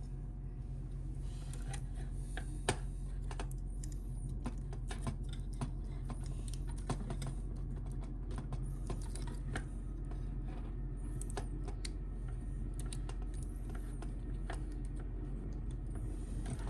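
Irregular small plastic clicks and taps from handling a plastic transforming action figure and its accessories, over a steady low hum.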